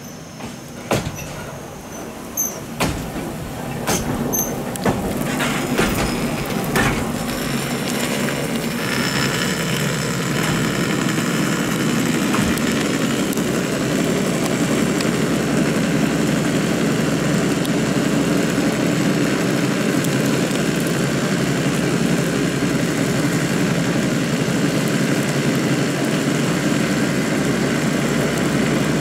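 Ikoma Cable funicular car running on its track: a series of sharp clacks over the first several seconds, then a steady running noise of the car and its haul cable that holds to the end.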